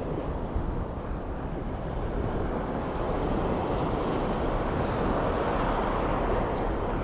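Onshore wind buffeting the microphone over the wash of surf on a beach: a steady rushing noise that swells slightly in the middle.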